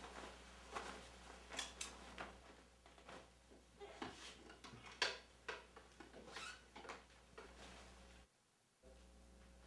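Faint rustling and small knocks of clothing being taken off and handled, over a steady low room hum, with a brief dropout near the end.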